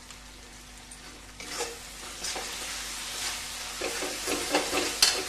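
Onions, capsicum and green chillies sizzling in a hot metal kadai with a dash of soy sauce. A metal spatula scrapes and stirs them from about a second and a half in, in repeated strokes, with a sharp click near the end.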